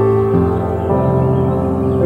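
Slow ambient new-age background music with sustained notes; new chords come in twice.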